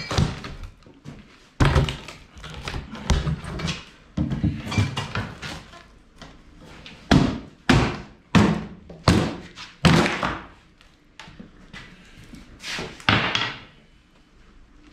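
Cardboard box and its packing being handled while a machine is unpacked: a string of irregular thunks and knocks with rustling and scraping in between.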